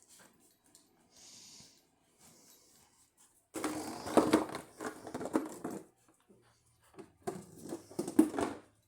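Labrador puppies play-fighting: scuffling and rough-play noises that start suddenly about three and a half seconds in, pause briefly, and pick up again near the end.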